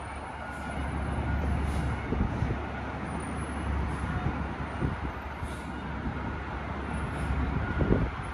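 Garbage truck engine running steadily as the truck drives slowly, a low rumble with a few knocks.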